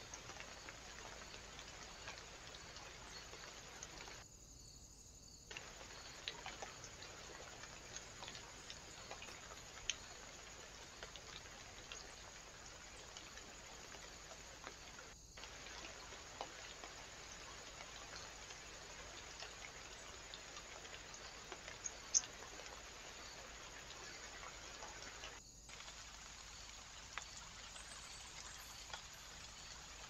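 Steady low hiss from a trail camera's microphone, with scattered faint ticks and one sharper click about two-thirds of the way through. It is broken by short drop-outs where separate recordings are joined.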